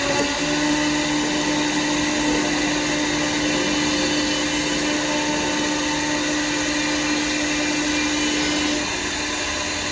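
CNC wood lathe running: a steady motor hum and whine over a noisy mechanical background. The hum settles in just after the start and its main tone drops out near the end.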